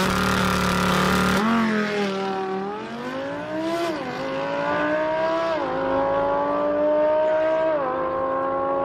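Drag car engine accelerating hard down the strip, its pitch climbing through the gears and dropping back at each upshift, about four times. A loud rush of noise comes with the steady engine note in the first second or so.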